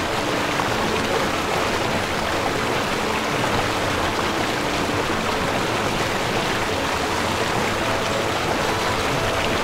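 Waterfall cascading in a steady, even rush of falling water.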